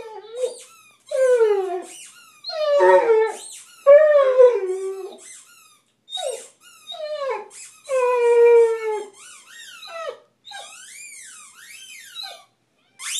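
Basset hound howling and whining at a closed door in a string of short, falling cries, with one longer drawn-out howl about two-thirds of the way through and shorter up-and-down yelps near the end.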